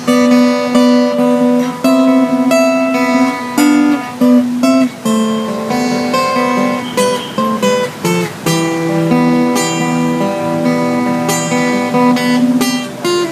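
Acoustic guitar strummed in a steady rhythm, chords ringing and changing every second or so, with no voice: an instrumental passage of a slow pop ballad.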